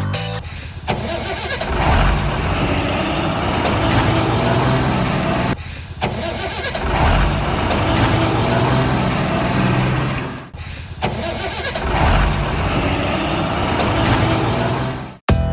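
Heavy vehicle engine running with low, uneven revving, in three long stretches broken by short gaps.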